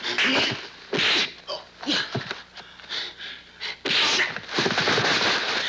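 Kung fu film fight sound effects: several whooshing swishes of moving limbs and clothing, the longest about four seconds in, with a few light hits.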